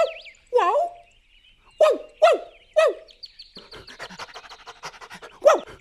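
Cartoon dog giving short yelping barks that drop in pitch, five in the first three seconds and one more near the end. From about three seconds in comes a fast, even run of short ticks under a thin high whistle.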